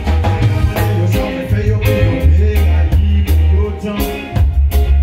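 Live reggae band playing: a heavy bass line under drums, electric guitar and keyboards.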